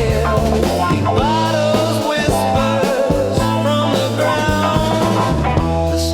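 Psychedelic rock instrumental passage: a lead line with bending, sliding notes over steady held bass notes.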